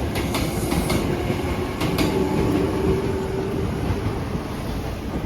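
Hankyu Senri Line train passing close by, a loud rumble of wheels on rail with several clacks over rail joints in the first two seconds and a steady hum for a second or so in the middle.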